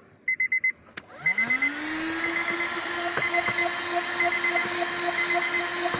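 NAKO Tornado 12-volt handheld car vacuum cleaner switched on about a second in: a click, then the motor spins up with a rising whine and settles into a steady running hum. Over it, a quick run of four high electronic beeps repeats about once a second.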